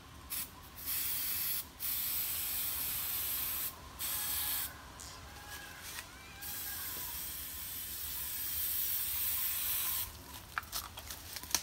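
Aerosol can of blue wound spray hissing as it is sprayed onto a wounded elephant's leg: several short bursts, then one longer burst of about three and a half seconds.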